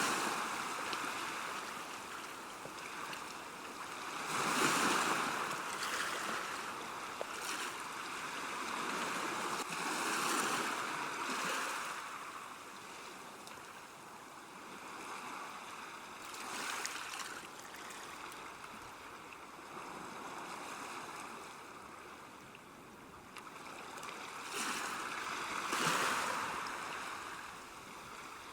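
River water running along a bank: a steady rush that swells louder and eases off again every few seconds.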